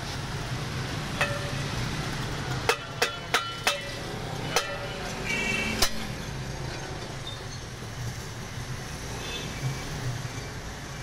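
Sharp metallic clinks and knocks, about seven in the first six seconds, some with a short ringing tone, from handling the cast-iron hand-wheel juice press and steel tumblers. A steady low hum of street traffic runs underneath.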